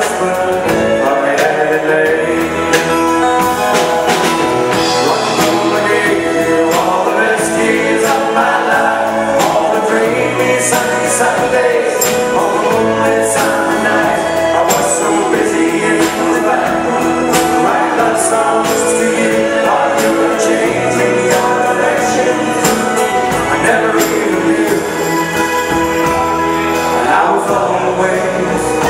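A live band playing a song, with men singing lead and harmony over electric bass guitar and band backing.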